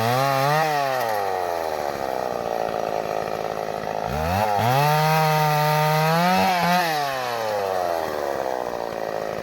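Chainsaw engine blipped twice at the start, then settling to idle. A few seconds in it revs up and holds high for about two seconds before dropping back to idle.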